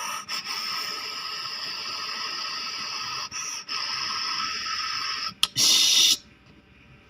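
Panasonic mini-split air conditioner outdoor unit running with a steady airy hiss, which swells into a brief louder rush about five and a half seconds in and then cuts off abruptly.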